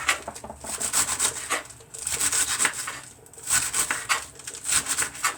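A knife shredding lettuce thin on a cutting board: quick bursts of rapid slicing strokes, about five bursts with short pauses between them.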